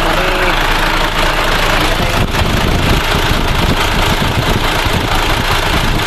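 MAN TGS truck's diesel engine idling steadily and loud, with a newly fitted power-steering pump letting its ATF circulate before the steering wheel is turned.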